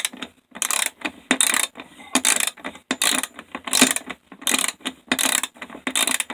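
Ratchet wrench ratcheting in quick back-and-forth strokes, about two a second, each stroke a short clicking rasp, on a stubborn hex bolt that is not coming loose.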